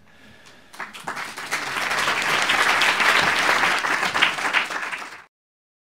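Audience applauding: many hands clapping, building up about a second in and then cutting off suddenly near the end.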